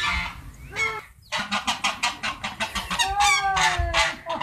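Domestic fowl calling: a quick run of short clucking calls, then a long drawn-out call that falls slightly in pitch near the end.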